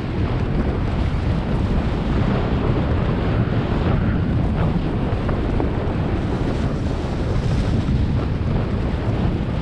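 Wind buffeting the microphone of a mountain bike's helmet or body camera on a fast downhill run, mixed with tyres rolling over a dirt trail strewn with dry leaves. The rushing noise is steady, with a few faint clicks.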